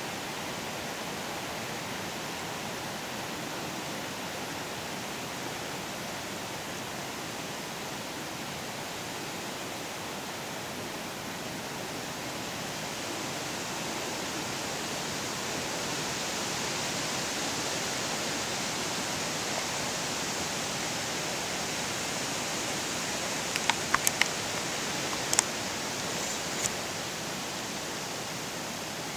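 A steady rushing hiss of outdoor background noise that grows a little brighter midway. Near the end come a handful of light, sharp clicks.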